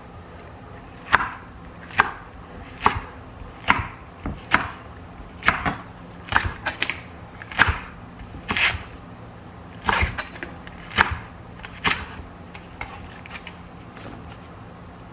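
Kitchen knife chopping food on a cutting board: about a dozen slow, separate cuts roughly a second apart, growing fainter and sparser near the end.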